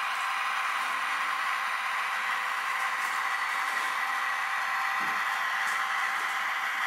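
Sound decoder of a ROCO H0-scale BR 114 diesel locomotive model playing the engine sound through the model's small speaker: a steady diesel running hum, thin and without any low rumble.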